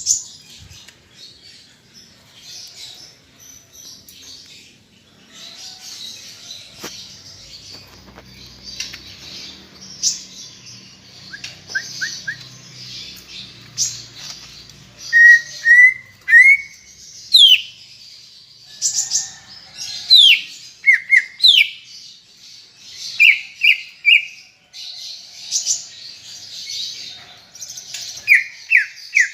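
Green leafbird (cucak ijo) singing. A run of soft, high, scratchy chatter gives way about halfway through to loud, clear whistled notes that sweep downward, delivered in quick pairs and triplets.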